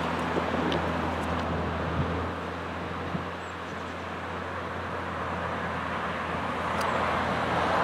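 A diesel train's engine running with a steady low hum, with the noise swelling a little near the end.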